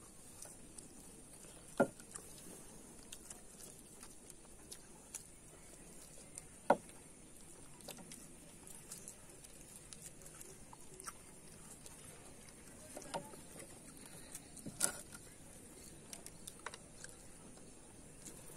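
Children eating samosas: soft chewing and mouth clicks, with scattered small ticks and a few sharp knocks on the wooden table, the loudest near the end, as steel tumblers are set down.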